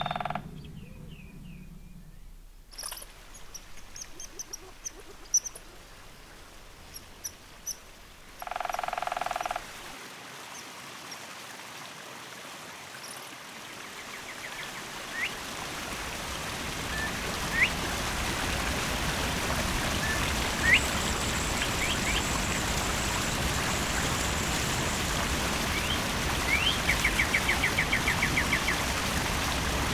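Forest ambience: scattered high bird chirps, and twice a short pitched call lasting about a second, in the first third. Then the rush of a creek and cascading waterfall rises steadily and runs on, with birds chirping over it and a rapid trill near the end.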